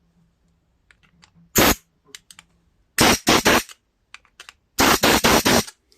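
Compressed air from a blow gun blasting through the passages and jet holes of a carburetor to clear out debris, in short hissing bursts: one single blast, then a quick cluster of three or four, then a longer string of blasts near the end.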